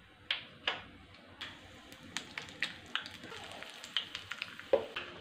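Mustard seeds popping and crackling in hot oil in a small aluminium tempering pan as a South Indian tempering fries: a few sharp pops at first, then a quick scatter of crackles from about two seconds in.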